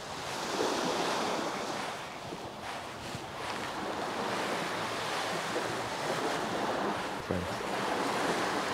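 Small sea waves washing onto a sandy beach: a steady hiss that swells and eases as the waves come in.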